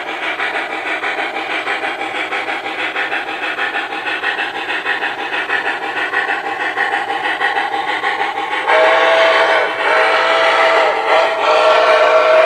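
Model steam locomotive's onboard sound system playing a rapid, rhythmic steam chuff as the MTH Pere Marquette 2-8-4 Berkshire runs, then a steam whistle sounding three blasts: two of about a second each, and a third held longer.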